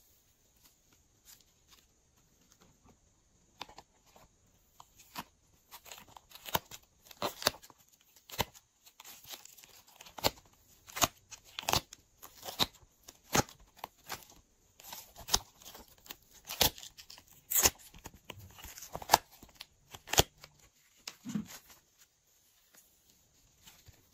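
Slime squeezed and kneaded by fingers, giving off irregular sharp pops and clicks. The pops are sparse at first, come thick and fast from a few seconds in, and die away near the end.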